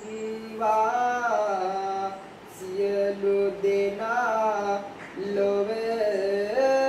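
A young Buddhist novice monk chanting kavi bana, Sinhala Buddhist verses sung unaccompanied in a slow, drawn-out melody with wavering turns on the held notes. Near the end the voice steps up in pitch and holds a long note.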